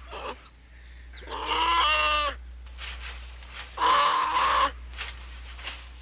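An animal calling twice, each a wavering, pitched cry about a second long, with the second cry a couple of seconds after the first. A steady low hum runs underneath.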